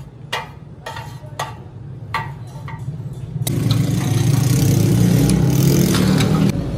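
A few lumps of coal clink as they are dropped onto the forge fire. About three and a half seconds in, the forge's electric blower switches on and runs with a steady hum and a loud rush of air.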